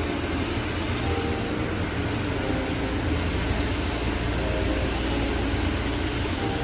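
Stick-welding (SMAW) arc crackling and sizzling steadily as an electrode runs a stringer pass on an overhead fillet weld.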